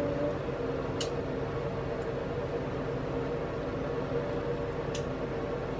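Steady mechanical hum, like a fan or ventilation unit running, with two faint ticks about four seconds apart.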